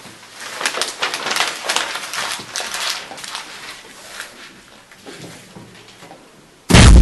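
Paper rustling and crinkling in a run of irregular crackles as sheets of paper are handled, dying down after a few seconds. A sudden, very loud boom near the end, the loudest sound here.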